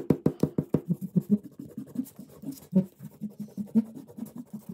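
White eraser rubbed quickly back and forth over a sheet of drawing paper, several short strokes a second, rubbing out the pencil lines under freshly inked Sharpie outlines. The strokes are fastest and loudest in the first second and a half, then go on a little slower.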